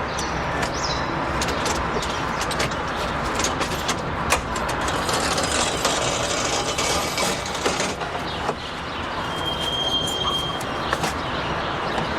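Steady vehicle noise, a rushing rumble scattered with many small clicks and knocks.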